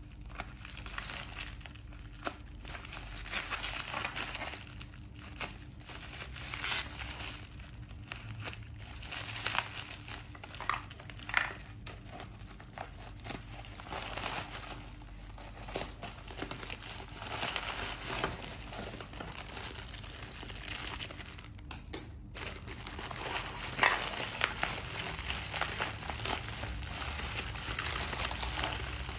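Plastic packaging crinkling and rustling as scissors cut through a black plastic mailer bag wrapped in clear tape and hands tear it open, with irregular crackles and sharp snips. Near the end the bottle in its clear plastic wrap is handled and rustles.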